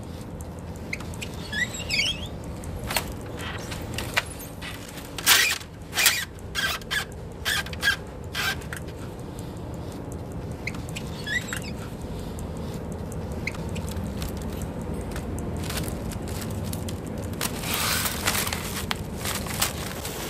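A run of sharp clicks and clinks, thickest about five to nine seconds in, over a low steady rumble, with a couple of short high chirps. Near the end comes a hissing crinkle of plastic bubble wrap being handled.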